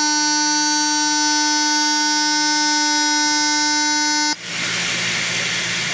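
TIG welding arc of a Jetline seam welder fusion-welding stainless steel with no filler, giving a steady pitched buzz. About four seconds in the buzz cuts off abruptly as the arc goes out, and a steady hiss follows.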